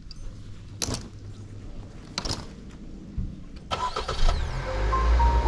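A car engine running with a low steady hum, broken by a few sharp clicks. Nearly four seconds in, a loud rush of noise cuts in and background music begins.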